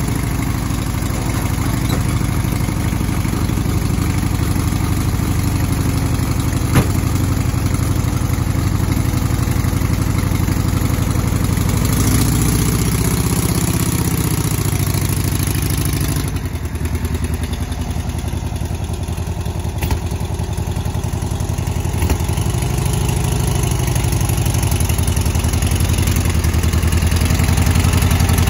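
1969 Volkswagen Beetle's air-cooled flat-four engine running steadily at idle, its note shifting upward for a few seconds around the middle.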